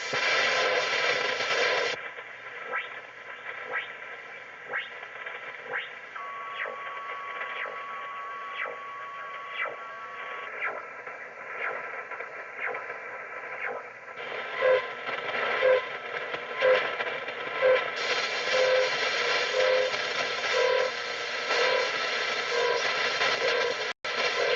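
HF radio receiver audio of a strange sweeping signal: over the receiver's hiss, short chirps pass about one and a half times a second. The receiver's mode and filter change several times, so the hiss narrows and widens; partway through a steady tone sounds for a few seconds, and later the sweep comes through as short beeps about once a second.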